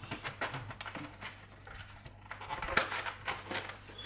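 Irregular light clicks and taps, with a louder knock about three seconds in, from a plastic egg carton and a fork being handled at a stone kitchen counter.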